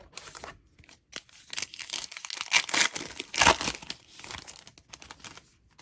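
Trading-card pack wrapper being torn open and crinkled in the hands: a run of crackling and rustling, loudest in the middle, that dies away near the end.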